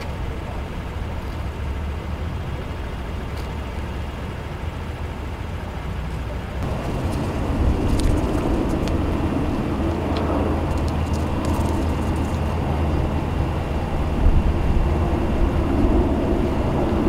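Steady low rumble of motor vehicle engines running, growing louder about seven seconds in, with a few faint clicks.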